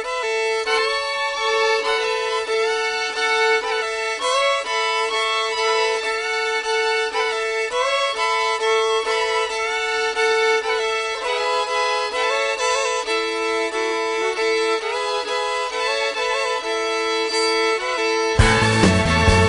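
Solo fiddle playing a blues tune, a steady held note sounding under the moving melody. About a second before the end, a full band with drums and bass comes in and the music gets louder.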